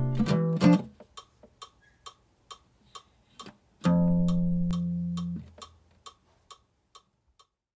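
Jazz guitar finishing an ending phrase: the last notes die away within the first second, and a final chord struck about four seconds in rings for about a second and a half before being cut off. Faint, evenly spaced ticks keep time in the gaps and fade out near the end.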